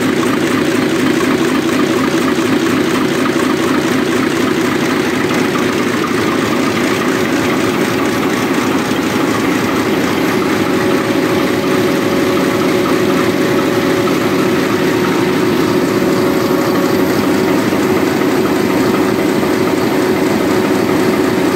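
Large Mirrlees Blackstone multi-cylinder diesel engine running steadily with a loud, even low drone.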